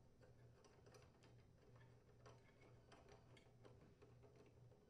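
Near silence: faint, irregular small clicks of a nut driver working the screws of a small engine's carburetor mounting bracket, over a faint low hum.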